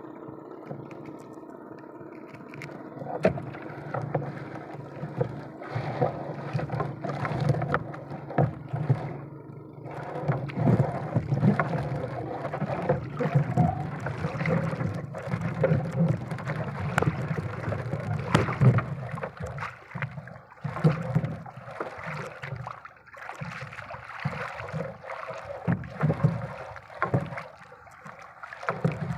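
Water sloshing and splashing around a small fishing boat, with irregular knocks and clatter.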